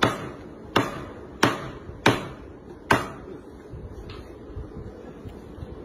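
Heavy cleaver chopping meat on a thick round wooden block: five hard strokes about two-thirds of a second apart, then a lighter knock about four seconds in.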